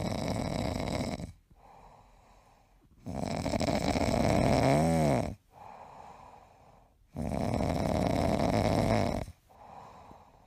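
Cat snoring in its sleep: three long snores about four seconds apart. The middle one is the loudest, with a wavering pitched tone in it.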